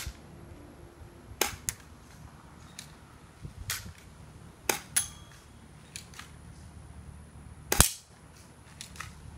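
Walther PPQ spring airsoft pistol being fired and re-cocked: sharp snaps a second or two apart, with fainter clicks between them. The loudest snap comes near the end.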